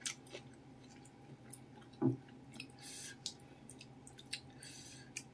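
Quiet chewing and wet mouth noises of someone eating meatballs and noodles in broth, with scattered small clicks and a soft knock about two seconds in.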